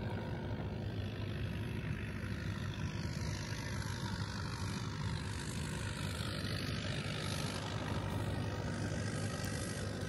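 A steady, low engine drone that does not change, with a hiss of noise over it.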